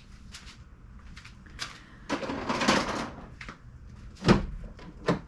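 Handling noise of items being moved and set down: light clicks, a noisy shuffle lasting about a second starting about two seconds in, and two sharp knocks near the end.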